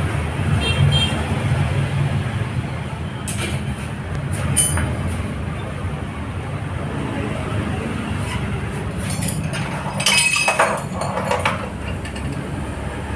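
Metal clinks and knocks as a stripped motorcycle frame is handled in a steel frame-straightening press, loudest about ten seconds in, over a steady low rumble.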